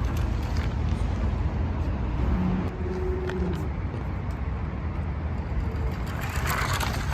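A steady low outdoor rumble, with a brief higher, brighter burst of sound near the end.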